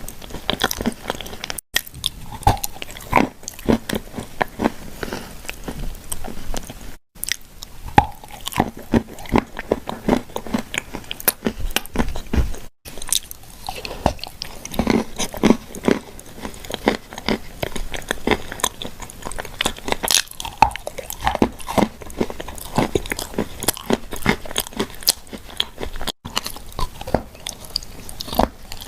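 Close-miked biting and chewing of something dry and crunchy, a steady run of sharp crackles and crunches. The sound drops out briefly and completely four times.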